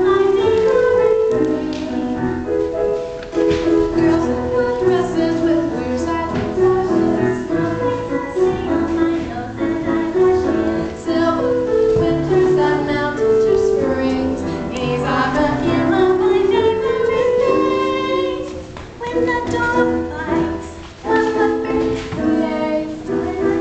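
Young voices singing a show tune together over instrumental backing, holding long sung notes that move up and down in pitch.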